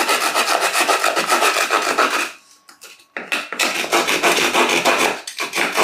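Folding hand saw cutting through a wooden plank with fast back-and-forth rasping strokes; it stops for about a second a little after two seconds in, then resumes.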